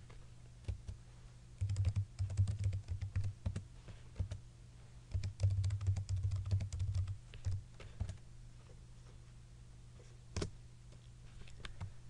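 Typing on a computer keyboard: two short runs of rapid keystrokes, then a few scattered key presses, with one sharper keystroke near the end.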